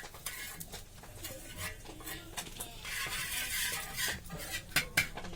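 Metal utensils clinking and scraping against a cooking pan, with many sharp clicks and a hissing scrape about three seconds in.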